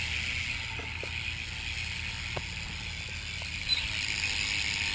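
Primo rear hub of a BMX bike freewheeling as the wheel spins, its ratchet pawls clicking in a fast, steady buzz that is nice and loud.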